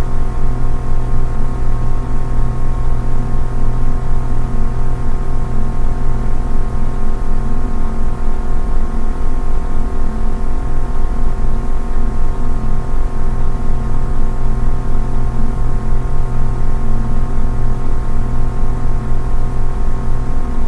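A steady ambient drone of many sustained tones over a strong low hum, holding unchanged throughout.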